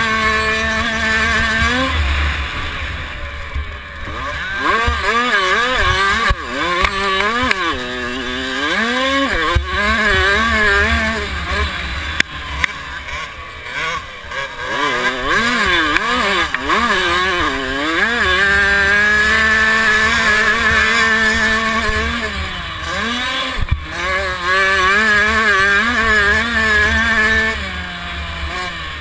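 A 65cc two-stroke motocross bike's engine is ridden hard. Its pitch rises and drops over and over with throttle and gear changes, and it holds steady for a few seconds at a time in the second half. Wind rumbles on the bike-mounted microphone underneath.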